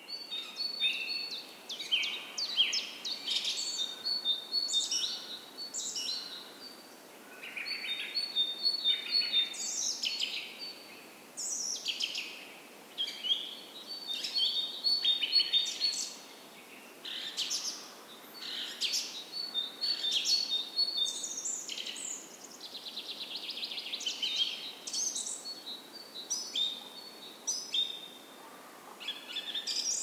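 A chorus of small songbirds: overlapping chirps and whistled calls, with one bird repeating a short phrase of quick high notes every few seconds, and a fast trill about two-thirds of the way through.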